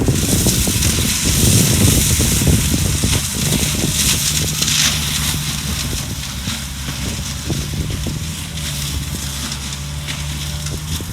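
Skid steer engine running steadily under load while its mulching drum grinds through brush, a dense crackling and shredding noise over the engine hum. The grinding is heaviest for the first few seconds, then eases.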